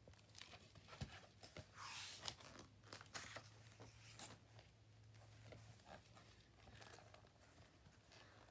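Faint rustling and light taps of a hardcover picture book's pages being handled and turned.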